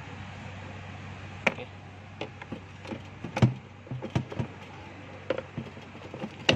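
Irregular clicks and knocks of a socket tool and hard plastic engine parts being handled, the loudest about halfway through and just before the end. A low steady hum stops about halfway.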